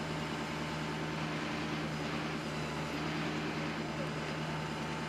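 Tow truck engine running steadily at a constant low hum while the wrecked pickup is winched up the bank.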